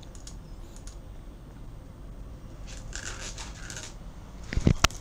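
Handling noise while steel BBs are loaded into a spring air pistol: a few faint clicks, a scratchy rustle about three seconds in, then a sharp double knock near the end, the loudest sound.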